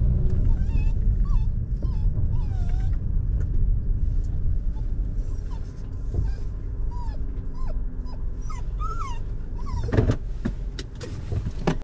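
A dog whining in short whines that rise and fall, over the steady low rumble of a moving car. A sharp knock about ten seconds in.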